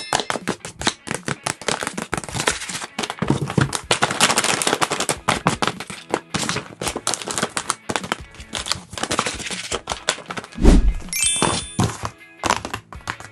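Paper being handled at close range: rapid, irregular crinkling and clicking. There is a low thump a little before the end, with a brief high chime just after it.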